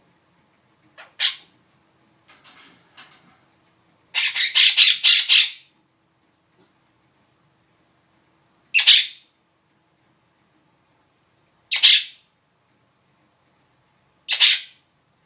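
Pet bird squawking in short harsh calls. One squawk comes about a second in, then a few faint clicks. A quick run of six or seven squawks follows at about four seconds, then single squawks roughly every three seconds.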